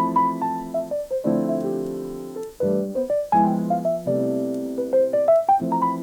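Background piano music: chords struck and held with quick runs of notes between them.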